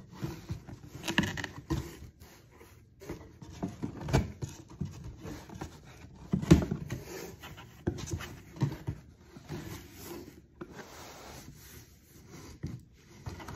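A cardboard package being opened and handled: irregular scraping, rubbing and rustling with a few sharp knocks, the loudest about six and a half seconds in.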